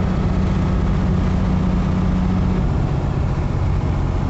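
Semi truck's diesel engine droning, with road and wind noise, heard inside the cab at highway speed. The engine's hum drops a step in pitch about two-thirds of the way through.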